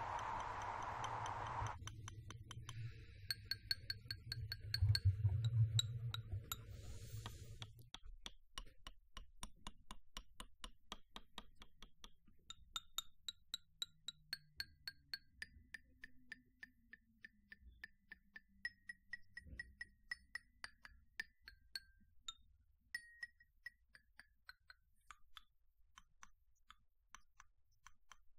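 A shower runs and cuts off about two seconds in, leaving a low hum for several seconds; then water drips keep falling in a quick, uneven patter of small clicks and plinks.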